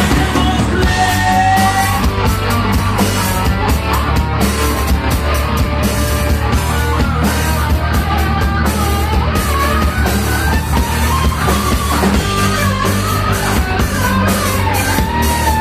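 Heavy metal band playing live: distorted electric guitars, bass and a drum kit with busy cymbals, with a melodic lead line bending above the steady low end.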